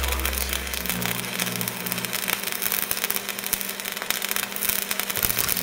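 Fire sound effect for a flaming logo animation: a dense crackling roar, opening with a deep boom that fades within about a second, over a steady low hum.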